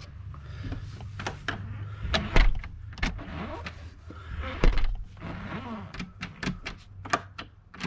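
Baldwin thumb-latch door handleset being worked: a string of sharp metallic clicks with a few heavier knocks, over a steady low hum. The clicks come faster near the end.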